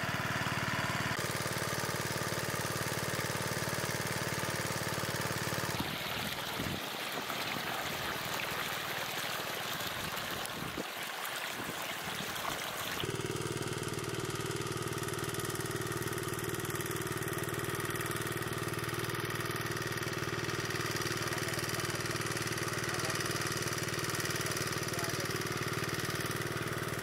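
Small engine-driven water pump running steadily, pumping water out of a fish pond. For several seconds in the middle the engine hum gives way to a rushing noise before the steady engine sound returns.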